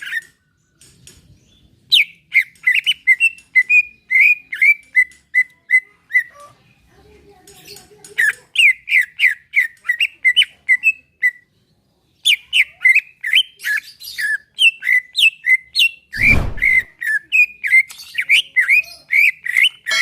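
Cucak ijo leafbird singing in fast runs of short sweeping whistled notes, phrase after phrase with brief pauses between. A short low thump breaks in late on.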